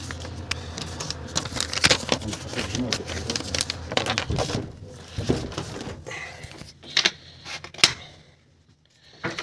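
A strip of paper rustling and crinkling as it is worked between a PVC window sash and its frame, with clicks and knocks of the sash and its fittings. A few sharp clicks come about seven seconds in. This is the paper test of how tightly the sash presses on its seal.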